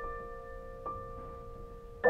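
Solo piano playing a slow passage: a held chord rings and fades, a softer note is struck a little under a second in, and a fuller chord comes right at the end.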